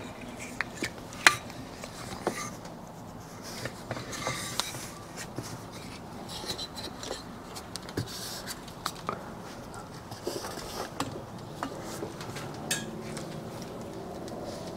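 Scattered clicks, knocks and light metallic clinks as an aluminium motorcycle cylinder is handled and set onto a bench holding stand. The sharpest knock comes about a second in.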